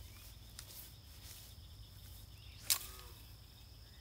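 Steady high trilling of evening insects over a faint outdoor rumble. About three-quarters of the way through, one sharp click-like knock, as the rod is cast out over the pond.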